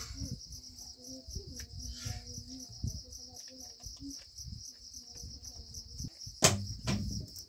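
Insects chirring steadily in a fast, high pulse, with faint voices underneath. Two sharp knocks sound about a second apart near the end.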